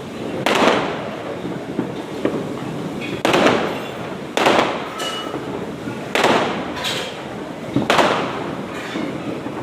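Diwali firecrackers (patakhe) going off: five loud bangs spaced one to two seconds apart, each with a short fading tail, over a steady background of distant crackling.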